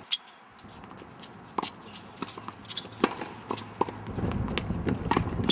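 Tennis play: a string of sharp pops and taps from a racquet striking the ball and the ball bouncing on the court, the loudest about three seconds in. A low rumbling noise comes in about four seconds in.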